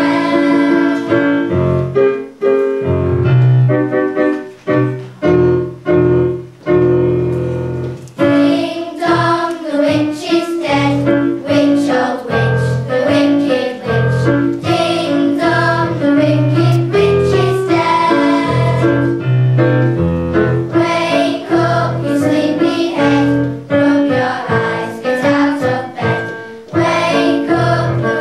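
A choir of children singing a song to piano accompaniment, the music growing fuller about eight seconds in.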